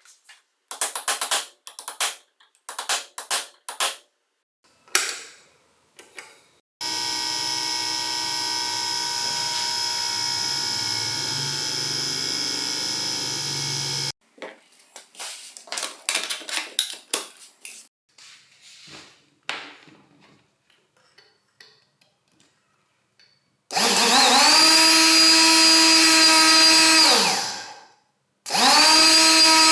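An electric power tool motor run in short bursts. First comes a steady run of about seven seconds. Later a motor spins up, runs steadily and winds down, then starts again near the end, with clicks and tapping from handling in between.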